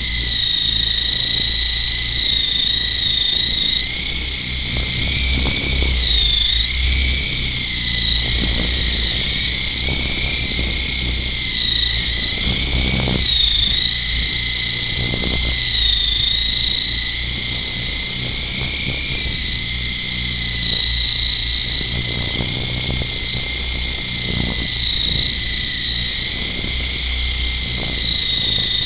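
Colco Apache AH-64 model helicopter in flight, heard close up: a steady high motor-and-gear whine whose pitch dips and recovers a few times with the throttle, over a low buffeting rumble of wind on the microphone.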